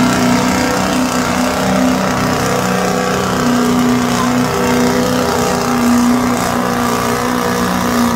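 Pulling vehicle's engine running loud at steady high revs under load during a pull down the track.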